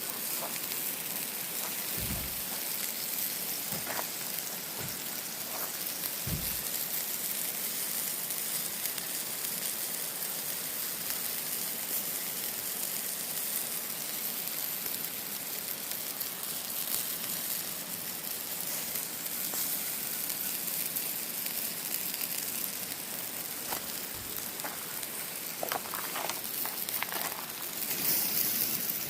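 Rainbow trout sizzling in melted butter on a grill, a steady high hiss. A few soft knocks in the first several seconds and a cluster of clicks near the end.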